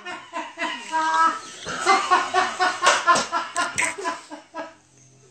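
A child's high-pitched laughter mixed with excited voices, in quick repeated bursts. It dies away to quiet about a second before the end.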